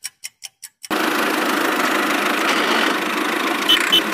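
Rapid timer ticking, about five ticks a second, stops abruptly about a second in. A tractor engine then runs steadily, with two short beeps near the end.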